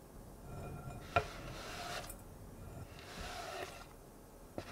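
Metal bench scraper scraping chopped white chocolate across a cutting board and into a glass bowl: two scraping strokes, with a sharp tap about a second in and another near the end.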